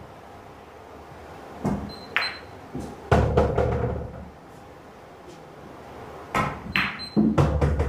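Two pool shots about four and a half seconds apart. Each has the sharp click of the cue tip on the cue ball and a ringing ball-on-ball click, followed by a longer, louder stretch of balls rolling and knocking on the table.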